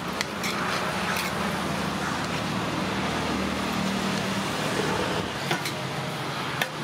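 Steady street traffic noise with a low engine hum, broken by a few sharp clinks of steel serving vessels and plates.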